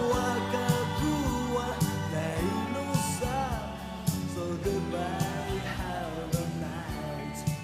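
Rock song: a singing voice over band accompaniment with regular drum hits.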